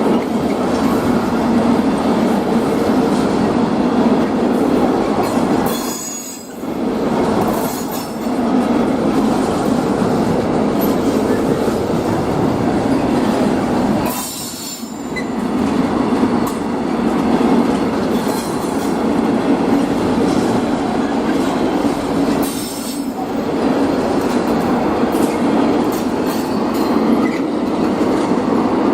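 Freight train passing at speed: a steady loud rumble of wheels on rail. It briefly dips three times, about eight seconds apart.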